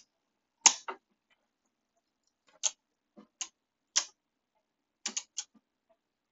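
Two spinning Beyblade tops colliding in a plastic stadium: a string of sharp, irregular clacks, about eight in all, some in quick pairs.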